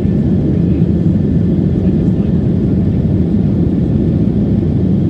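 Boeing 737's jet engines running, a steady loud low rumble.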